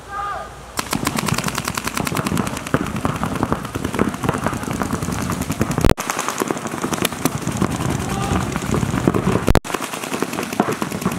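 Several paintball markers firing rapid, continuous streams of shots, starting about a second in as a point begins. The firing breaks off sharply twice and picks straight up again.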